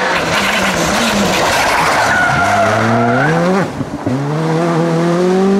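Škoda Fabia Rally2 rally car's turbocharged four-cylinder engine revving hard under acceleration, with tyres scrabbling over loose gravel as it slides through a corner. The engine pitch climbs steeply, breaks off with a few pops about two-thirds of the way in as it shifts up, then climbs again.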